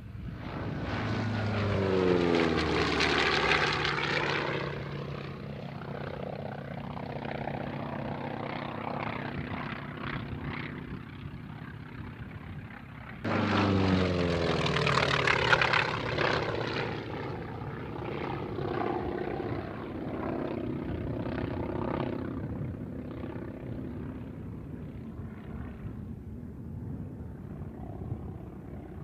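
Single-engine propeller aircraft flying close past twice, its engine and propeller drone dropping in pitch as it goes by. After each pass the drone steadies and grows fainter as the plane climbs away. The second pass starts abruptly about halfway through.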